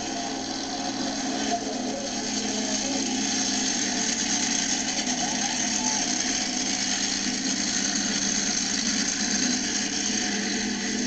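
Jurassic Attack monster truck's engine running hard at high revs as the truck races along a dirt track, a steady, dense mechanical noise that gets a little louder about three seconds in.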